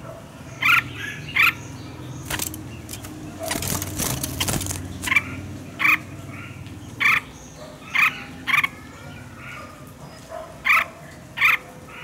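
Red-whiskered bulbul giving short, loud, sharp calls, about nine of them at uneven spacing, over a steady low rumble. A brief burst of noise comes about four seconds in.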